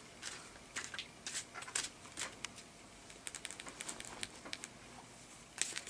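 Light, irregular clicks and taps, coming several a second at times, over a quiet room.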